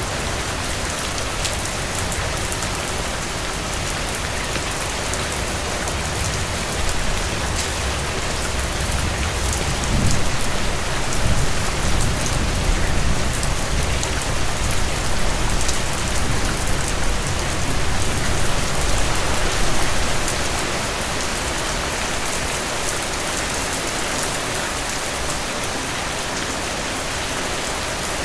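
Steady heavy rain falling on surfaces. A low rumble, soft distant thunder, swells in the middle and fades again.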